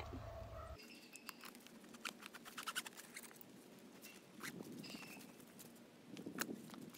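Faint scattered clicks, taps and leather rustling of western saddle tack being handled as the cinch is undone on a horse.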